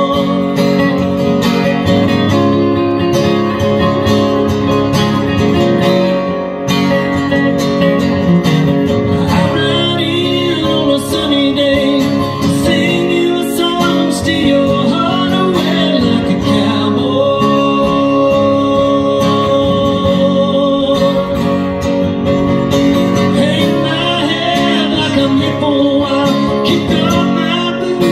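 Live acoustic country music: several acoustic guitars strumming and picking together in a steady, unbroken passage of the song.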